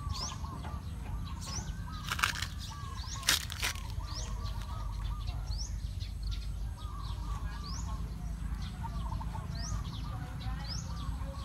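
Birds chirping repeatedly in the background, with short rising high notes about once a second and busier twittering lower down, over a steady low rumble. Two brief noisy bursts break in about two and three seconds in.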